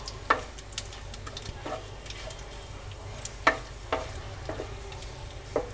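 Cumin seeds, dried red chillies and a bay leaf sizzling gently in hot oil in a non-stick kadhai while a spatula stirs them, knocking and scraping against the pan about once a second.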